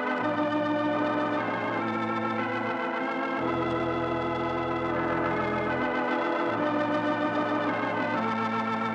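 Organ music: sustained chords that change every second or so, over a deep bass that drops out and comes back.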